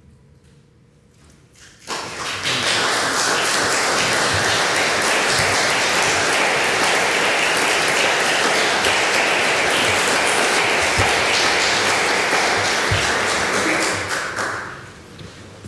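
Audience applauding, starting suddenly about two seconds in, holding steady, then dying away near the end.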